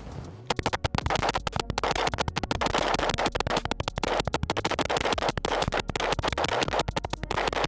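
9mm Gen 3 Glock 17 with a G-Flex Reflex trigger firing as fast as the trigger can be worked, emptying a drum magazine. The shots come many per second in an unbroken string, starting about half a second in.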